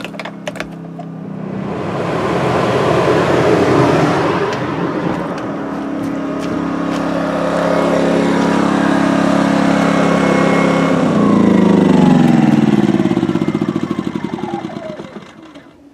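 A motor vehicle passes by: engine and tyre noise swell up, hold, then drop in pitch and fade away as it moves off.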